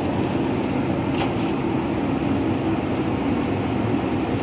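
Steady low mechanical hum and rumble of kitchen equipment around a vertical shawarma broiler, with a few faint short scrapes as a long knife shaves chicken off the spit.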